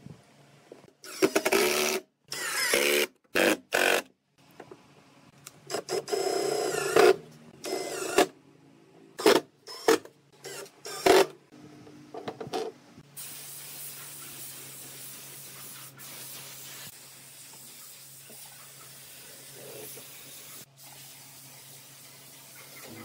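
Cordless drill driving wood screws in a dozen short bursts, its motor whine rising as it spins up and stopping as each screw seats. About halfway through this gives way to a steady hiss with a low hum under it.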